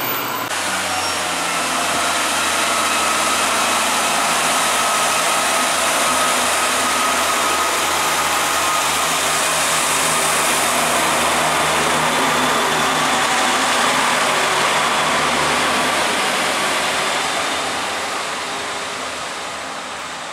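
Northern diesel multiple unit running along the platform, its underfloor diesel engine droning under the rumble and hiss of the train. The sound fades over the last few seconds as the train moves away.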